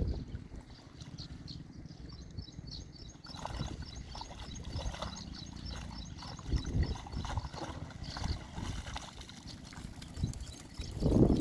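Outdoor ambience: rapid high bird chirping repeating over a steady low rumble, with a few louder low knocks near the end.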